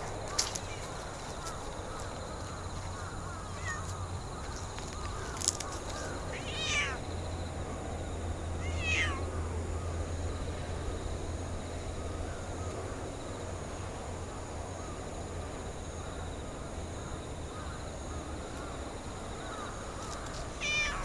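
Orange-and-white cat meowing: short, falling meows, two about a third of the way in and one more near the end.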